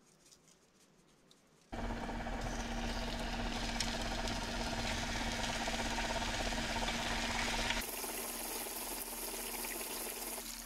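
Chicken thighs sizzling in a frying pan: a steady frying hiss with a low steady hum under it, starting suddenly about two seconds in and turning thinner and brighter about eight seconds in.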